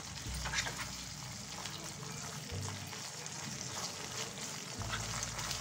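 Onion, capsicum and green chillies sizzling in a sauce-coated nonstick kadai while being stir-fried, a spatula scraping and knocking against the pan now and then.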